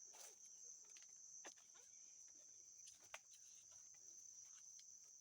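Near silence, with a steady high-pitched insect drone throughout and a few faint clicks, the sharpest about three seconds in.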